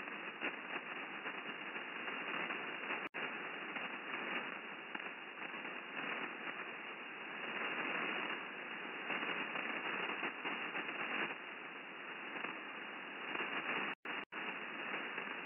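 Shortwave receiver hiss and static on the 5616 kHz upper-sideband HF aviation voice channel while nobody is transmitting, held within the receiver's narrow voice filter. It drops out briefly about three seconds in and twice more near the end.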